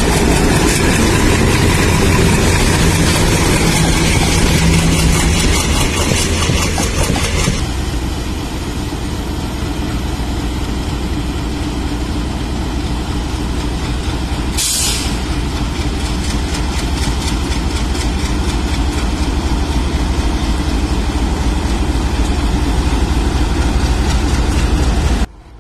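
Indian Railways diesel locomotive engine running loud and steady. The sound changes abruptly about a third of the way in, there is a short hiss about halfway, and the sound cuts off suddenly just before the end.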